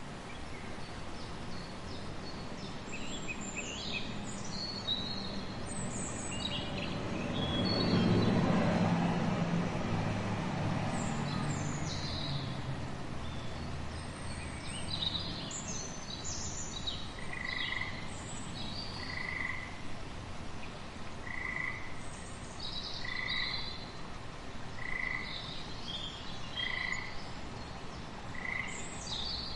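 Frog chorus with scattered short, high chirps; from about halfway, one call repeats evenly about every second and a half. A louder, low swell of sound rises and fades about eight seconds in.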